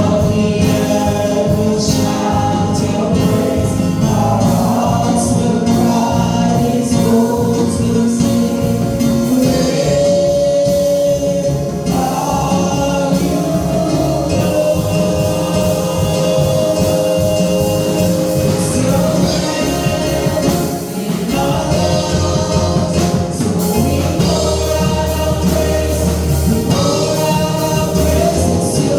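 Gospel music with a choir singing over a full band.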